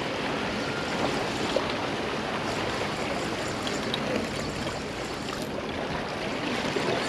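Small waves washing and splashing against granite boulders at the water's edge, a steady wash of water.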